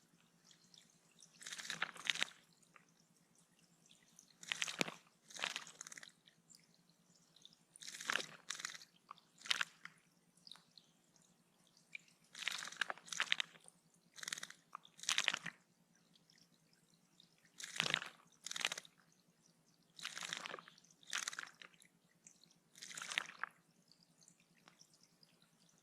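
A small bird bathing in shallow pond water, splashing in short irregular bursts every second or few with brief pauses between.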